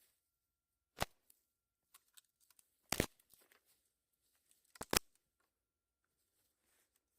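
Four sharp cracks, single ones about a second and three seconds in and a quick pair near five seconds, with faint rustling and handling sounds between them.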